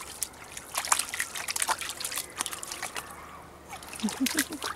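Black Labrador puppy wading in shallow water among rocks, with irregular small splashes and trickling as her legs move through the water.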